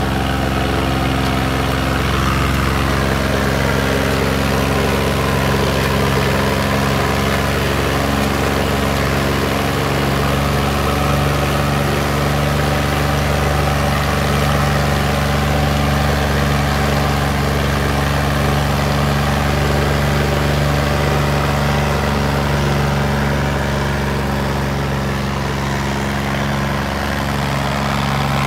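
Sonalika DI 35 tractor's diesel engine running hard and steady while dragging a disc harrow through soil, its heavy load shown by thick black exhaust smoke.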